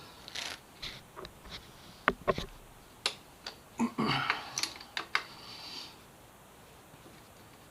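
Hand tool clicking and knocking on metal as a motorcycle chain guard bolt is worked loose: a string of irregular clicks, the sharpest two close together about two seconds in and a short rattle around four seconds.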